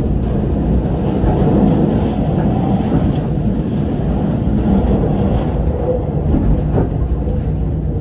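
Passenger train running along the track, heard from its rear observation car: a steady low rumble of wheels on rails, with a few faint clicks.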